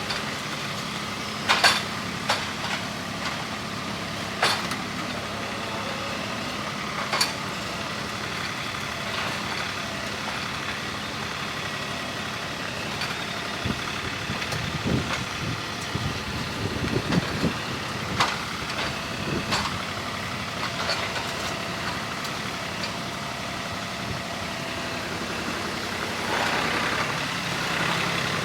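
TYM 394 compact tractor's diesel engine running steadily, its pitch rising and falling a few times midway, with several sharp metallic clanks.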